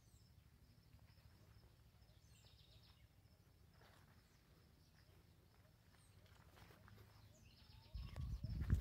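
Faint outdoor farmyard ambience with a low rumble and a few faint bird chirps, then a loud burst of low rumbling on the microphone during the last second.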